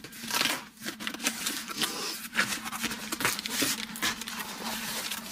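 A cardboard subscription box being opened by hand: a run of irregular rustles and scrapes of cardboard and packing material.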